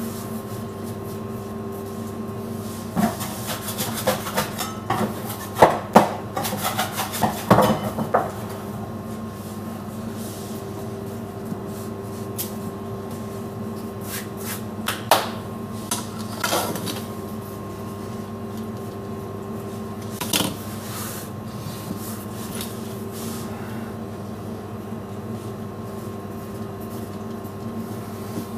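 Steady mechanical hum with several bursts of knocking and clattering as things are handled: a dense run of knocks a few seconds in, more around the middle, and a single knock later on.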